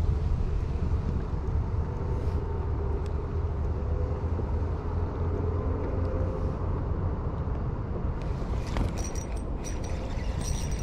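Steady low wind rumble on the microphone while a spinning reel is cranked to bring in a hooked crappie, with faint whirring from the reel and a few sharp clicks near the end.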